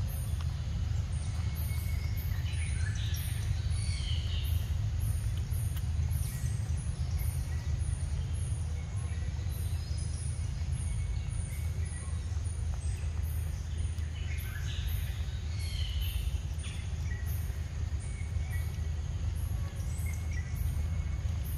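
Steady low rumble of background noise with birds chirping in two short spells, about three seconds in and again around fifteen seconds.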